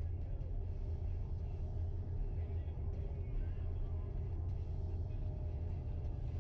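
Steady low road and tyre rumble inside the cabin of a Tesla Model X driving on a paved back road, with no engine note because the car is electric. Faint background music plays along with it.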